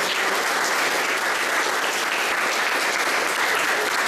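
Standing audience of a few dozen people applauding steadily.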